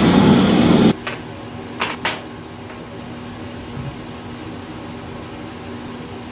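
A random orbital sander with a dust-extraction hose runs loudly on the end-grain board and cuts off suddenly about a second in. Two light knocks follow, then a low steady hum.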